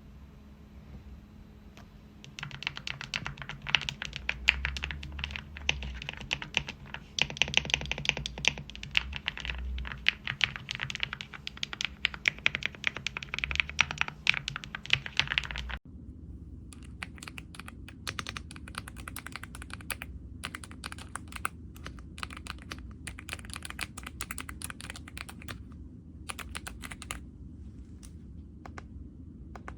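Rapid typing on an AULA F75 mechanical keyboard with pre-lubed Reaper switches, a dense run of keystroke clicks. About halfway through it cuts abruptly to a second typing passage with crisper, brighter clicks, which thins out and stops near the end.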